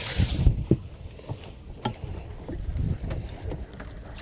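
Water splashing briefly at the start, then scattered knocks and low thumps as fish are handled in and around a bass boat's livewell.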